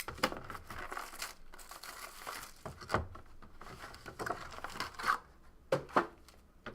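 Plastic wrapping on a trading card box being torn open and crinkled by hand, in irregular rustles with a couple of sharp snaps near the end.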